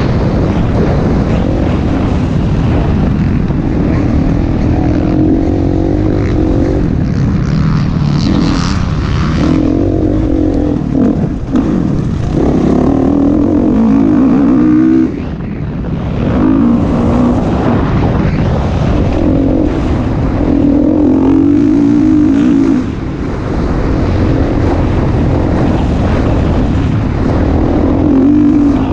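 Motocross dirt bike engine heard close up from on the bike, revving up and down as the rider accelerates through the gears, with brief drops where the throttle is shut about 11, 15 and 23 seconds in.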